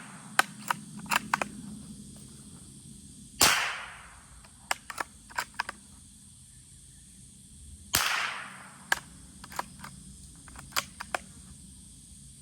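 Two shots from a Rossi bolt-action .22LR rifle firing subsonic rounds, about four and a half seconds apart, each a sharp crack with a short fading tail. Between the shots come quick runs of small metallic clicks as the bolt is worked to eject the case and chamber the next round.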